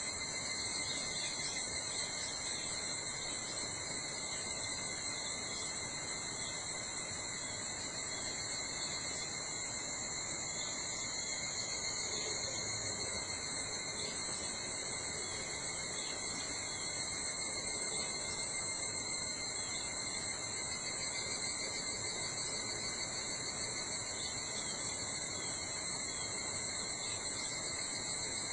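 Chorus of summer insects trilling without a break, several high-pitched, steady calls at different pitches overlapping, over a faint background hiss.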